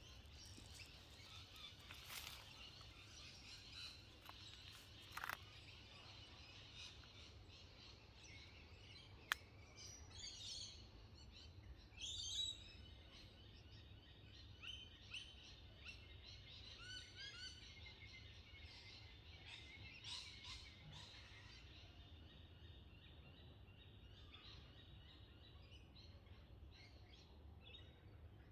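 Faint wild birdsong: scattered chirps and short trills from several birds over a steady low rumble, with a single sharp click about nine seconds in.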